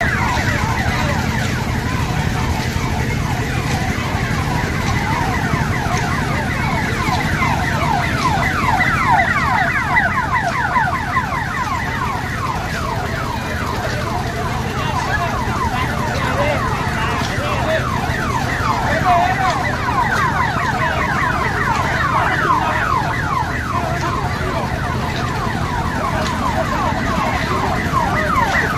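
Dense, overlapping siren-like electronic warbles, each falling quickly in pitch and repeating several times a second, over a steady low hum of fairground machinery.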